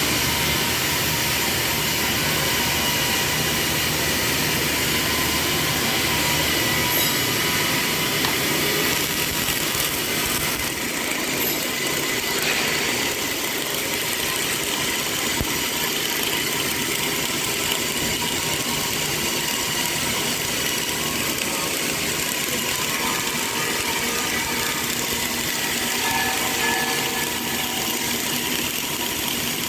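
CO2 (MIG/MAG) welding arc crackling and hissing steadily.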